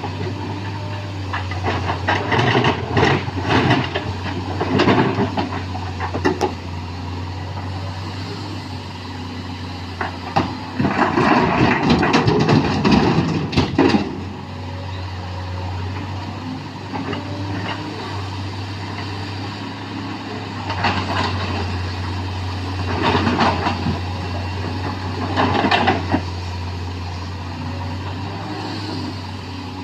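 Sany SY215C excavator's diesel engine running steadily, with irregular loud bursts of rock clatter and rumble as it digs and loads stone into a dump truck, the longest and loudest about a third of the way in.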